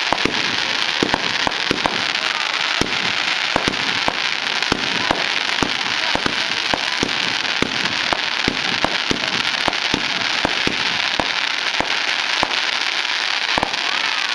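Aerial fireworks bursting overhead: a dense, continuous crackle with many sharp bangs going off irregularly, several a second.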